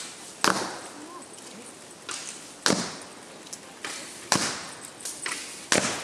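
Arrows from Japanese longbows striking a paper target, four sharp hits about one and a half to two seconds apart, each with a fainter click shortly before it.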